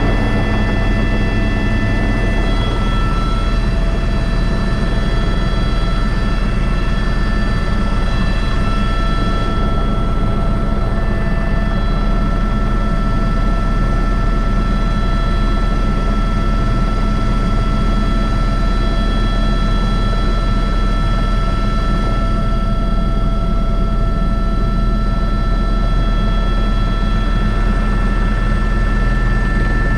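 Airbus H125 (AS350 B3) helicopter running steadily, heard from the cockpit: a continuous rotor and engine rumble with several high, constant whining tones from the turbine.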